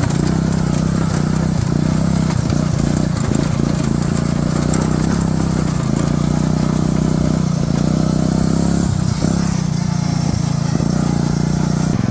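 Riding lawn mower engine running steadily as the mower drives off-road.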